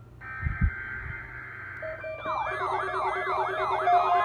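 A weather radio broadcast's SAME data burst, a harsh two-tone digital squawk, with a low thump about half a second in. About two seconds in, weather alert radios go off for the required weekly test: a warbling siren that sweeps up and down about three times a second, layered with steady and pulsing alarm tones.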